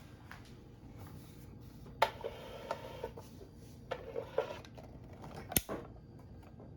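Handling noise from a Rowenta Turbo Silence Extreme table fan being moved and turned: scattered clicks and light knocks, the sharpest about two seconds in and again near five and a half seconds.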